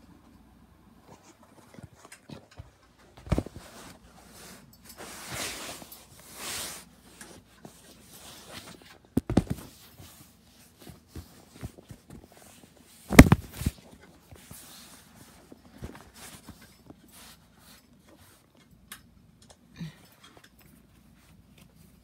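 Irregular clicks, knocks and rustling from handling the parts of a ceiling fan's light kit as it is taken down. The loudest knocks come about three, nine and thirteen seconds in.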